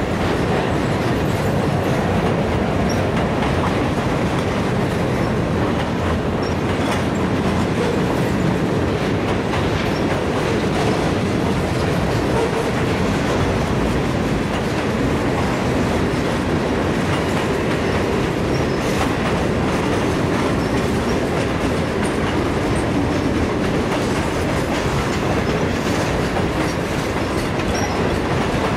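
Freight cars of a mixed freight train (centerbeam flatcars, boxcars, covered hoppers and tank cars) rolling past at steady speed. The wheels make a continuous rumble on the rails, with occasional faint clicks.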